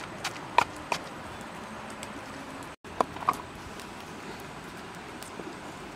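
Pestle pounding chilies and garlic in a mortar: a few sharp knocks in the first second and two more about three seconds in, over a steady outdoor background hiss.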